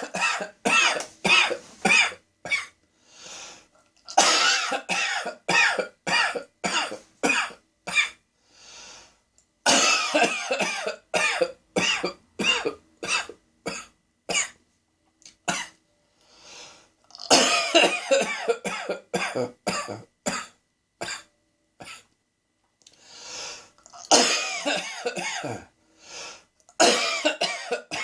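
A man's coughing fit: five or six bouts of rapid coughs in quick runs, with a drawn-in breath between bouts. It started as a tickle in the back of the throat, which he suspects cat hair set off.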